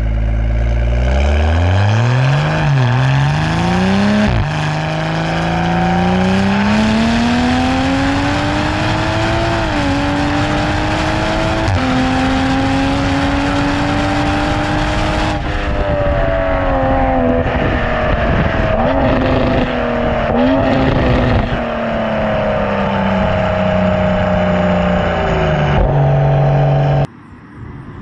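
Toyota GR Supra's B58 3.0-litre turbocharged inline-six, fitted with an MXP catted downpipe and the stock catback exhaust, heard right at the exhaust tip while driving. The engine pulls up through the revs, drops sharply in pitch at an upshift about four seconds in, keeps climbing, then eases off and winds down through the second half. The sound cuts off abruptly near the end.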